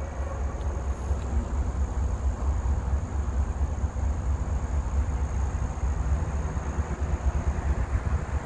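Low, uneven rumble of a distant diesel freight locomotive, mixed with wind buffeting the phone's microphone.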